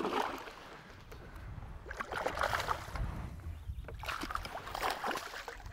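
Water splashing as a smallmouth bass thrashes at the surface beside the boat, in two short spells about two seconds in and again near the end, over a low steady rumble.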